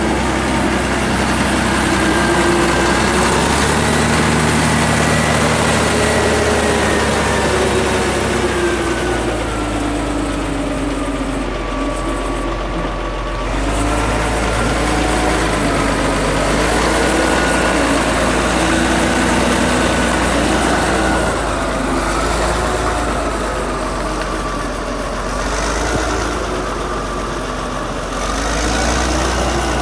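Caterpillar D7F crawler dozer's diesel engine idling steadily, its pitch drifting slowly up and down.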